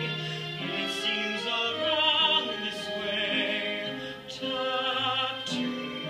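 A show tune sung live with musical accompaniment: a lead voice holds notes with vibrato over steady bass notes that change about every second. A few short, sharp percussive hits fall through it.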